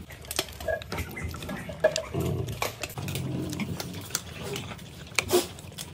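Dogs chewing and gnawing on treats, with irregular crunches and clicks of teeth.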